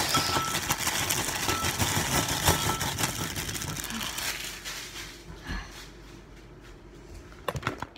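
Plastic instant-ramen packet crinkling and rustling as the noodle block is pulled out, loud and crackly for about five seconds, then much quieter with a couple of sharp clicks near the end.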